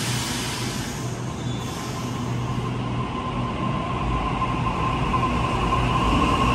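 Sydney Trains double-deck electric train pulling out of the platform. Its traction motor whine grows and rises slowly in pitch as it accelerates, and a rumble of wheels builds in the last couple of seconds.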